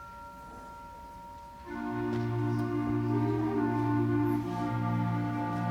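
Concert band of wind and brass instruments playing: a few soft held notes, then about two seconds in the full band comes in with loud sustained chords.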